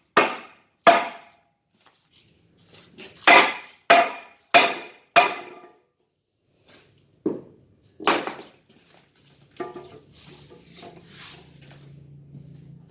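Hammer blows on the metal housing of an AvK 60 kVA alternator as it is knocked apart. There are about nine sharp, ringing strikes, coming singly and in quick runs with pauses between them. A faint low hum follows near the end.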